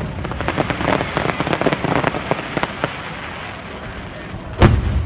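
Aerial fireworks: a dense crackle of many small rapid pops for the first three seconds or so, then one loud shell burst booming about four and a half seconds in.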